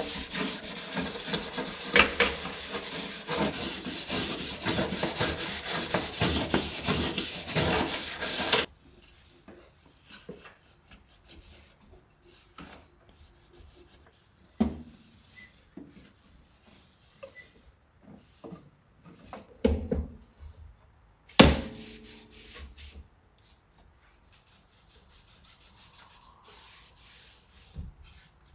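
A small brush scrubs a clay cleaning-stone paste on the metal inner wall of a mini oven, a steady rasping scrub that stops abruptly about nine seconds in. After that comes quiet cloth rubbing, broken by a few sharp knocks, the loudest about twenty-one seconds in.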